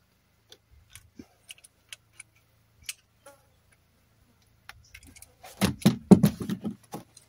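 Small metal plumbing fittings clicking and clinking as they are handled and worked with a hand tool: scattered light ticks, then a louder run of rapid knocking and scraping for about a second and a half near the end.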